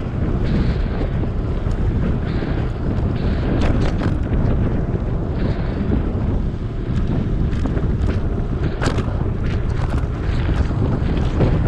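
Wind buffeting the microphone of a GoPro Hero 7 carried on a moving electric bike: a steady, loud low rumble, with short clicks and rattles now and then, the sharpest about nine seconds in.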